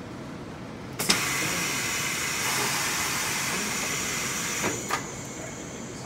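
Tire-changing machine's pneumatics: a sharp click about a second in, then compressed air hissing steadily for about four seconds, ending with two clicks as the valve shuts.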